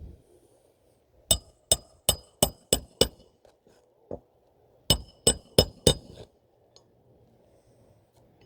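Six sharp taps on something hard that rings at a few fixed pitches, about three a second. Then comes a single duller knock, then four more ringing taps.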